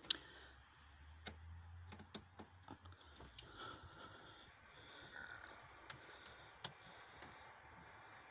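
Faint, scattered metallic clicks and taps, roughly one a second with the loudest right at the start, from a hand tool being fitted to and worked on a 10 mm bolt on the engine.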